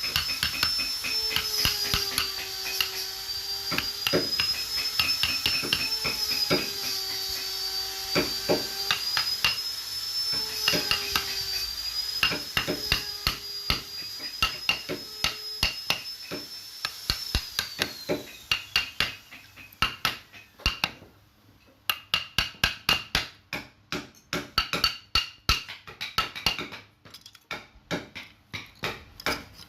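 Rapid, irregular sharp taps and knocks, as from hand tools striking wood, with a steady high whine under them that slides down and stops about 18 seconds in.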